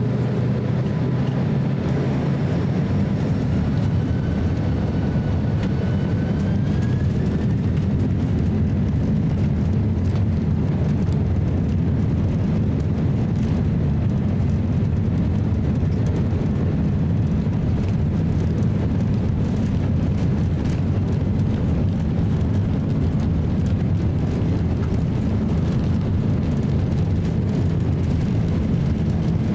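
Cabin sound of a Boeing 767-300 on its takeoff roll: the jet engines run at takeoff power with a steady, loud, deep noise. A faint whine rises in pitch a few seconds in.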